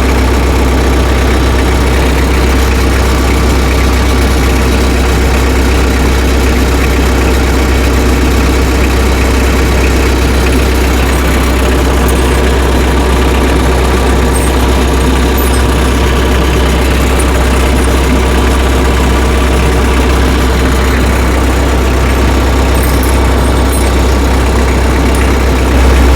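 Tractor engine idling steadily, a deep, even drone with no change in speed.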